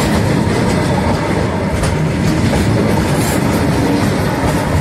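Wheels of Indian Railways BCNAHSM1 covered freight wagons rolling over the rail close by: a steady loud rumble with a few sharp clicks of wheels over the track.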